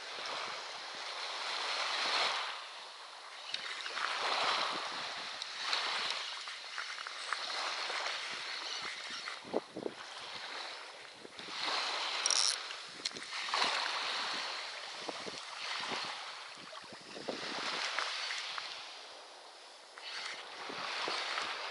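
Water washing around a boat with wind on the microphone, the hiss swelling and fading every couple of seconds, with a few small clicks and a brief high squeak about twelve seconds in.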